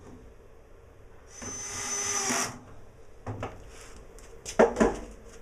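Cordless drill runs once for about a second, turning a screw in a steel-mesh ironing board's frame, with a steady motor whine. Then a few sharp knocks, the loudest about a second before the end.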